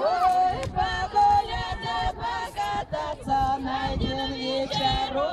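Group singing: several voices sing a song together, a melody of short, steady notes.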